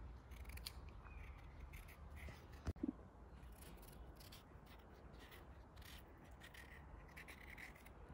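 Faint, crisp snicks of a kitchen knife cutting a fresh cucumber, repeated at irregular intervals, with one soft knock a little under three seconds in.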